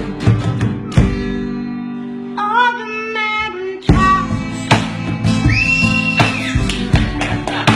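Music: strummed guitar chords over drum hits, with a singing voice coming in about two and a half seconds in and holding one long high note near the end.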